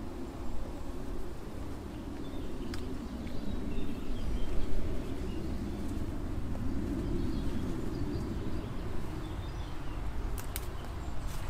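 Birds chirping faintly over a steady low rumble, with a few sharp clicks, one early and two near the end.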